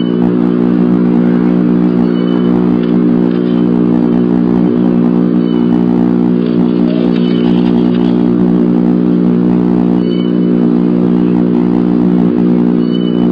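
Loud, steady electrical hum in the nest-box camera's audio, a drone made of several even tones that does not change. Faint short high peeps come through a few times.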